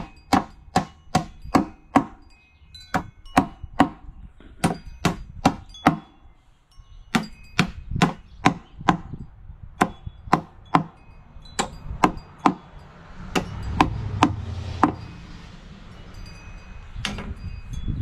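Hammer driving nails into the wooden boards of a beehive box: runs of sharp strikes, about two to three a second, with short pauses between nails. A few seconds of low rumbling noise come in about two-thirds of the way through, with one last strike near the end.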